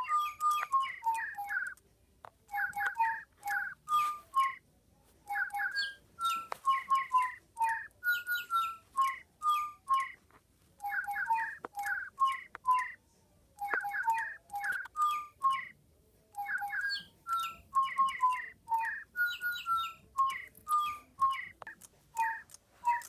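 Digibirds electronic toy birds whistling a song tune together in a chirpy, bird-like tone, note by note in short phrases with brief pauses between them.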